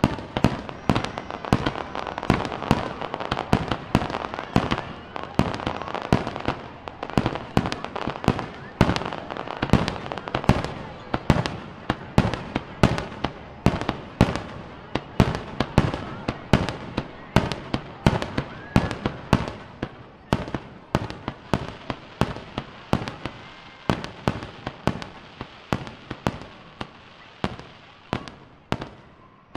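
Aerial fireworks display: shells bursting in quick succession, about two sharp bangs a second, over a steady noisy haze between the bangs.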